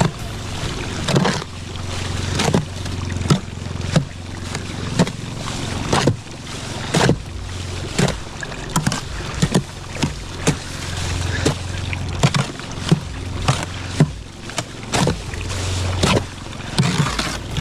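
Mortar hoe chopping and scraping through wet mortar in a wheelbarrow, about one stroke a second, each stroke ending in a sharp knock of the blade against the pan. Mortar is being mixed.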